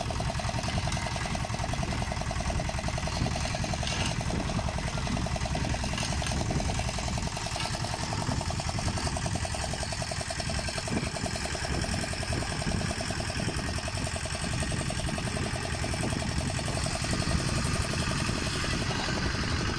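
Outboard motor of a small fishing boat running steadily, with a fast, even engine beat.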